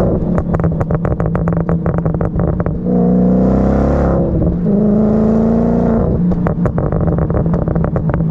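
2005 Audi B6 S4's 4.2-litre V8 through a muffler-deleted MagnaFlow exhaust, revving up in short pulls and, each time the throttle closes, burbling with rapid deep pops and crackles on the overrun, twice at length. The burbles come from the pop-and-burble mode of a Jackal Motorsports stage 1 ECU tune, switched on with the cruise-control stalk.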